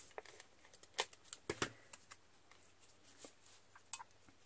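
Faint handling of paper and a plastic tape-runner adhesive dispenser on a craft mat: a few light, irregular clicks and taps.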